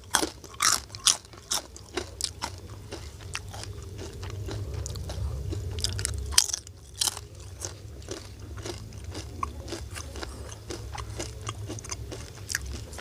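A person biting and chewing crunchy fried food: several loud crunching bites in the first two seconds and another about six and a half seconds in, with steady crunchy chewing between them. A steady low hum runs underneath.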